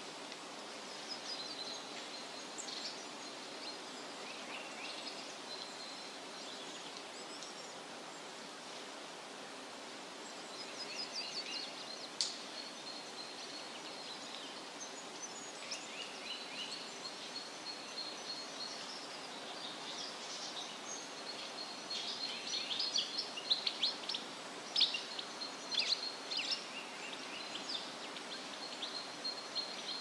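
Shallow woodland stream running steadily over rocks, with several songbirds chirping and trilling, the birdsong busiest and loudest in the last third.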